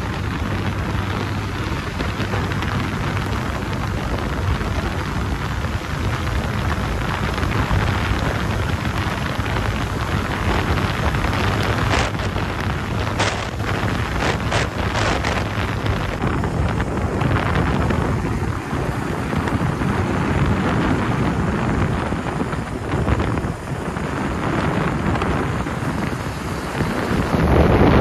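Wind rushing over the microphone of a Bajaj Pulsar 220 motorcycle at highway speed, with the engine running steadily underneath.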